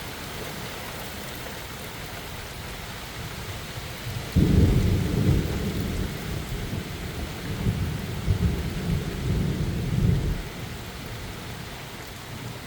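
Steady rain hiss with a thunderclap breaking suddenly about four seconds in, then rolling thunder that rumbles in several surges for about six seconds before dying away, leaving the rain.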